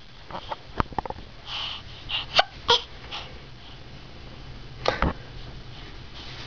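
A baby's short breathy vocal sounds and brief squeaks, with a few sharp knocks.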